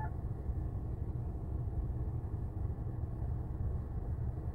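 Steady low background rumble with no speech and no distinct events.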